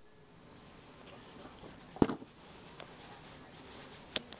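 Handling noise from paper instruction booklets and a toy box being moved about, with one sharp knock about two seconds in and two quick taps near the end.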